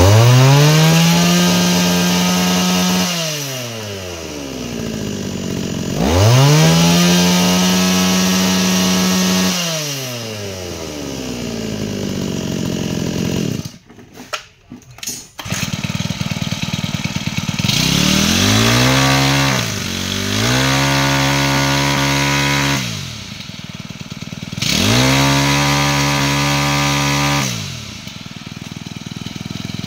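Mitsubishi TL23 two-stroke brush-cutter engine revved by hand at the carburettor. Five times it climbs quickly to a high steady speed, holds for about three seconds and drops back to idle. About halfway through the sound cuts out for a couple of seconds before the engine is heard idling again.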